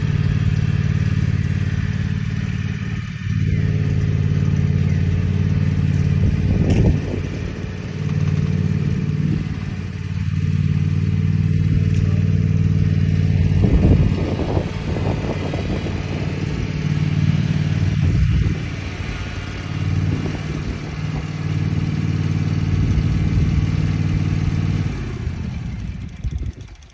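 Ride-on lawn mower engine running steadily, its level dipping and swelling a few times as it drives about, then stopping near the end.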